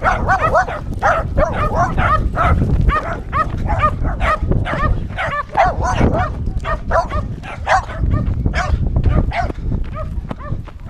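Dog barking in quick succession, about three or four barks a second, thinning out near the end, over a steady low rumble.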